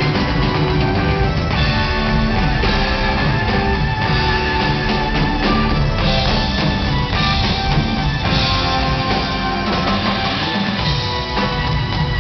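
Live rock band playing: electric guitar, keyboards and a drum kit, loud and continuous, heard through a handheld recording from the audience.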